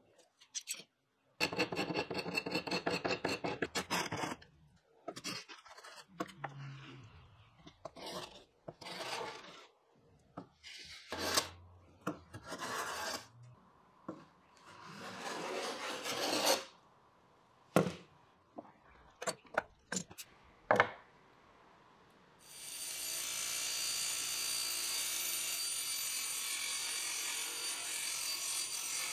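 Rapid scraping strokes on a wooden edge, then a series of separate hand-plane strokes shaving the edge of a bent-laminated wood chair back. About three-quarters of the way through, a table saw starts and runs steadily.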